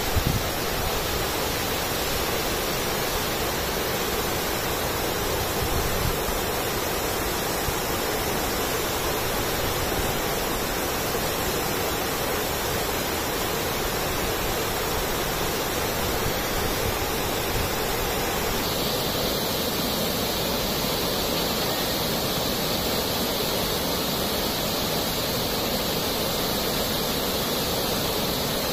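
Steady rush of falling water from the Ettipothala waterfall, an even, unbroken noise; a slightly brighter, higher hiss joins about two-thirds of the way through.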